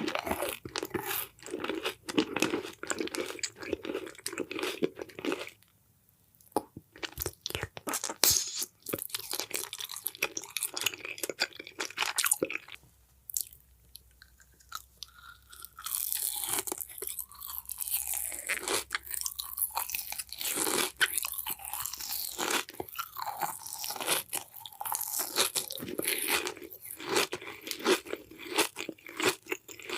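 Close-up crunching and crackling in quick, irregular runs. It pauses briefly about six seconds in, and again from about thirteen to sixteen seconds in.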